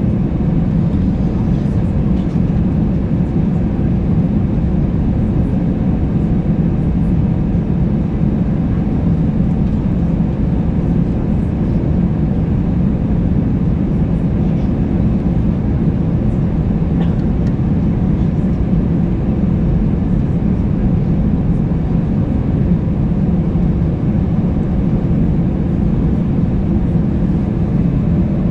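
Airbus A320-200 heard from inside the passenger cabin: a steady, even low rumble of engines and airflow, unchanging in level, with a few faint ticks.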